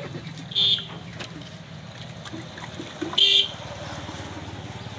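Two short vehicle-horn toots, about two and a half seconds apart, over a steady low rumble of traffic.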